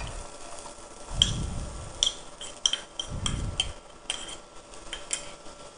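A spoon clinking and scraping against a small bowl as chopped onions are tipped out of it into a kadai of hot oil: about a dozen sharp, irregular clinks, with a couple of duller thuds in between.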